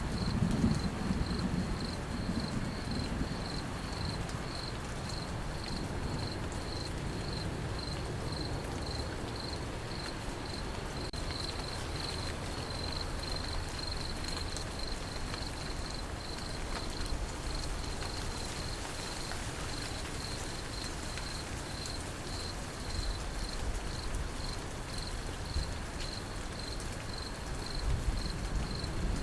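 Crickets chirping in a steady, even pulse over light steady rain. A low thunder rumble dies away in the first couple of seconds, and another begins to build near the end.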